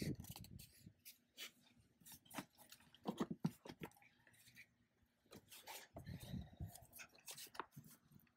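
Faint, scattered clicks and knocks of hard plastic, with quiet gaps: the air filter box and its cover being handled and fitted back in place.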